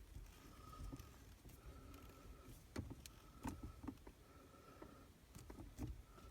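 New shift knob being twisted by hand onto the threaded shift lever of a 2011 Chevy Cruze six-speed manual: faint clicks and rubbing, with a short faint steady tone recurring about once a second.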